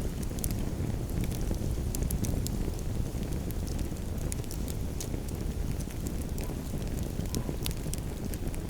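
Campfire crackling, with frequent sharp pops scattered irregularly over a steady low rumble.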